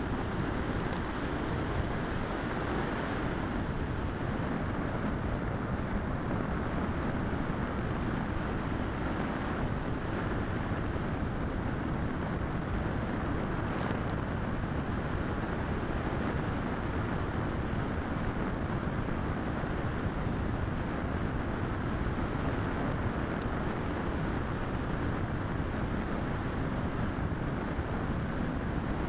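Steady rush of wind over the onboard camera of a Bixler 3 foam RC plane in flight, an even noise with no clear motor pitch.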